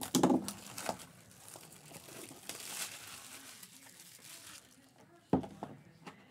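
Plastic shrink wrap crinkling and tearing as it is pulled off a cardboard trading-card box, with small crackles and clicks. There is a single sharp knock near the end.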